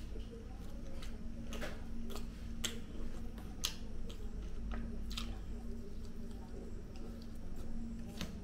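Close-up chewing and wet lip-smacking as tandoori chicken is eaten by hand, with irregular sharp mouth clicks. A steady low hum sits underneath.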